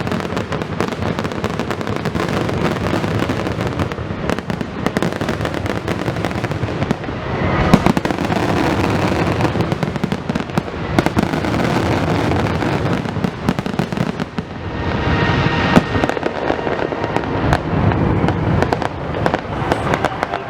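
Fireworks going off in rapid, continuous succession: many overlapping bangs and crackles, with louder booms about 8 seconds and 16 seconds in.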